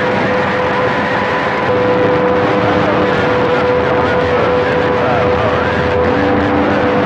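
CB radio receiver static, a loud steady hiss with several steady whistling tones on the channel, one stopping and others coming in.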